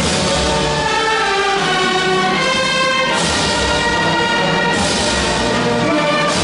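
Brass band music: wind instruments holding sustained chords at a steady level.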